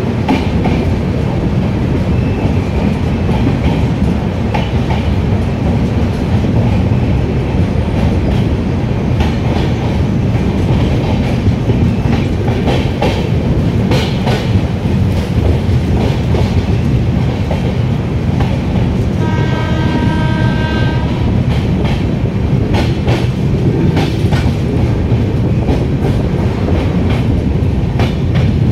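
Passenger train running at speed, heard from an open coach door: a steady rumble and rush of air, with wheels clattering over rail joints and points. A train horn sounds for about two seconds, around two-thirds of the way through.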